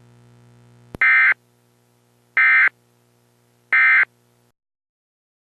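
Emergency Alert System End of Message signal: three short, identical bursts of warbling digital data tones, about a second and a half apart. A faint low hum runs underneath and cuts off just after the third burst.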